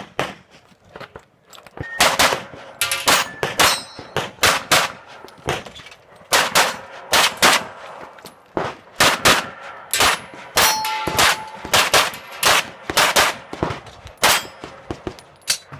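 Pistol shots fired in quick strings, with steel targets ringing out as they are hit.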